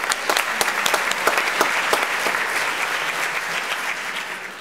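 Audience applauding, a dense patter of many hands, slowly fading down.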